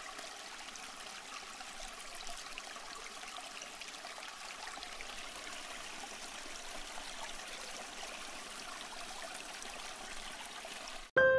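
Running water rushing steadily, the even hiss of a stream or falling water. At the very end it cuts off abruptly as piano-like music begins.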